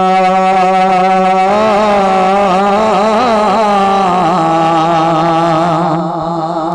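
A male naat singer holds a long sung note, straight at first, then wavering in ornamented runs from about a second and a half in, over a steady low drone.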